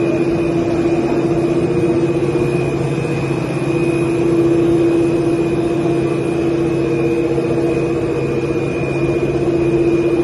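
Cable car station drive machinery running: a steady loud hum with a thin high whine over it, as the gondolas move slowly through the boarding station.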